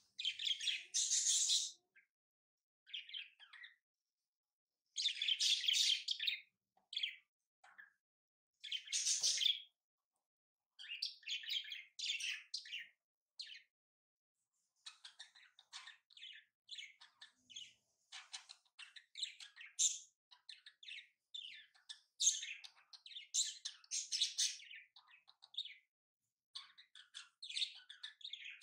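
Paper rustling and crinkling as it is handled, folded and creased by hand, in irregular bursts with silent gaps between them, dense rustles early on giving way to many short crackles.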